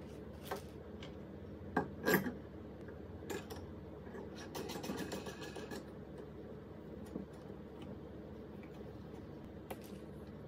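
Handling sounds of an electrical cord being fed up through a brass table-lamp stem: scattered small clicks, taps and rustles, with a quick run of rapid ticking about four to six seconds in, over a steady low hum.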